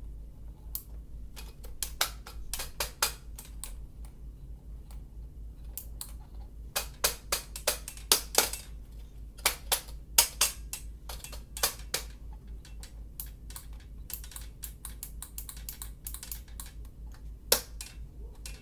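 Irregular sharp clicks and taps from small hard objects being handled close to the microphone, a few of them louder knocks, over a steady low hum.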